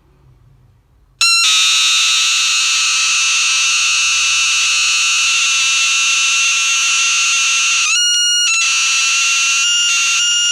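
Homemade transistor alarm-sound circuit sounding a loud, steady, high-pitched electronic alarm tone that switches on abruptly about a second in and holds, with a brief break about eight seconds in.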